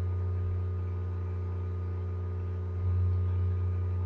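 Steady low electrical hum with several fainter overtones above it, a little louder from about three seconds in.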